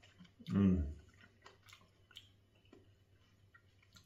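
A man chewing a home-fermented olive, with soft wet mouth clicks. About half a second in he gives one short hum that falls in pitch.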